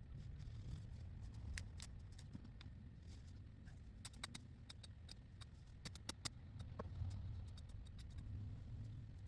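Scattered sharp snips and snaps of small branches being cut and handled while trimming a tree, in small clusters over a low steady rumble.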